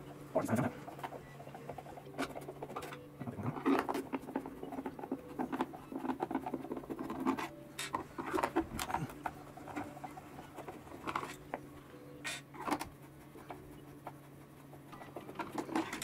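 Hand screwdriver backing screws out of a plastic power-station case: irregular scratchy squeaks and clicks as the bit turns in the screw heads, with small knocks as the case is handled. A faint low steady hum runs underneath.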